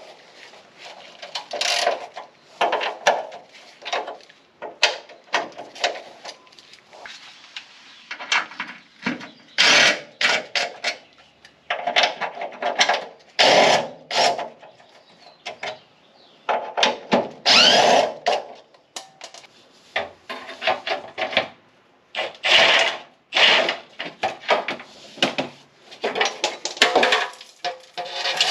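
A ratchet wrench and a 20-volt cordless power tool run in repeated short bursts, loosening and spinning out the 12 mm bolts of a car's rear subframe W bracket; several bursts rise in pitch as the motor spins up.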